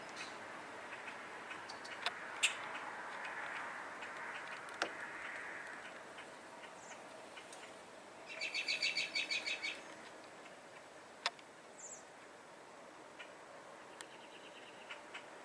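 Faint birdsong: a rapid trill of evenly repeated notes lasting about a second and a half, a little past halfway, with a few short chirps and several sharp clicks.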